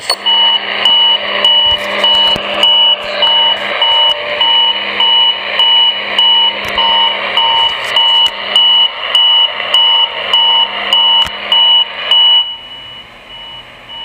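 Unidentified repeating electronic beeping received on a CB radio tuned to 27.395 MHz (channel 39). The beeps come about twice a second, each a two-tone pip, over radio hiss. The beeping drops out about twelve seconds in, leaving only hiss. It sounds like a wide AM signal, which the listener guesses could be a channel marker or someone jamming.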